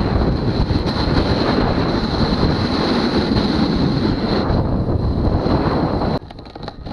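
Strong wind rushing over the microphone during a fast snowboard run on ice, a steady loud rush with a thin high whine under it. It drops off suddenly about six seconds in.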